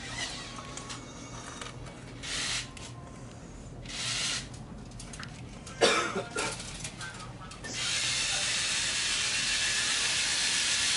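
A knife cutting and scraping jalapeños on a plastic cutting board, in short bursts, with a brief sharp sound a little past halfway. About three quarters of the way in, a steady loud hiss starts and runs on.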